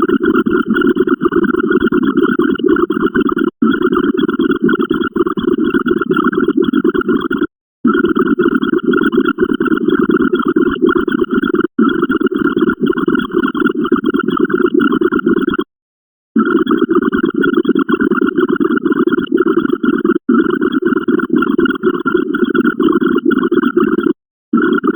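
A dense, noisy mix of looping sound effects, each tied to a binary digit of a running count. It drops out briefly about every four seconds, with a longer break about every eight seconds as the count rolls over.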